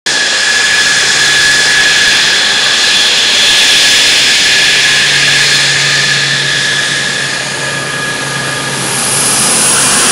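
F-16 fighter jet's engine, a loud steady jet roar with a high whine over it. The roar eases slightly late on and swells again near the end.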